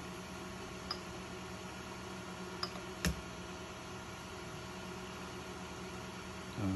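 Steady low hum with a few faint clicks, the loudest about three seconds in.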